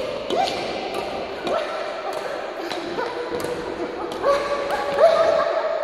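Sports shoes squeaking again and again on a sports hall floor as a badminton player moves and jumps, each squeak gliding up to a held pitch. Sharp knocks of racket strokes and footfalls come between the squeaks, all ringing in the hall's echo.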